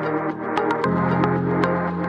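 Background music: held low synth notes that shift to a new chord about a second in, with light, regular percussion ticks.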